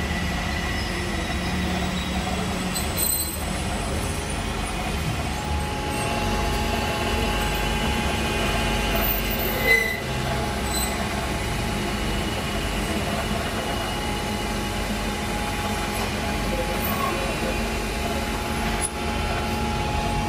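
Metal lathe running: a steady machine hum with thin, steady whining tones, and two short knocks, the louder one about ten seconds in.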